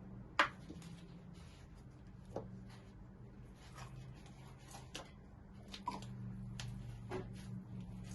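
Crunchy slime being squeezed and worked by hand, giving off irregular crackles and pops, the sharpest about half a second in.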